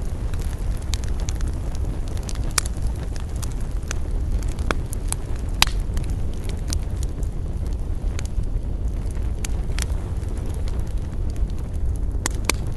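Campfire burning: a steady low rumble with scattered sharp crackles and pops from the wood, a louder pop about two and a half seconds in and another near the middle.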